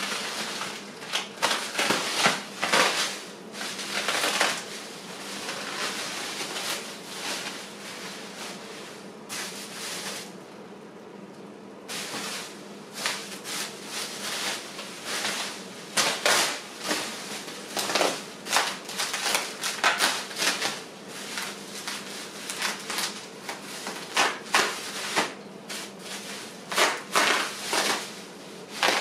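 Bike packaging and parts being handled: an irregular run of sharp clicks, knocks and rustles, with a quieter stretch about ten seconds in.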